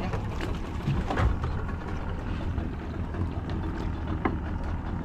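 Steady low rumble aboard a small open fishing boat: the outboard motor running at idle under wind and water noise. A few light knocks come through, one a little past a second in and one near the end.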